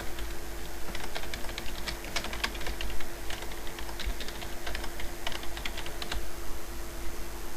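Typing on a computer keyboard: runs of quick keystroke clicks as a line of text is entered, over a steady low hum. The keystrokes stop near the end.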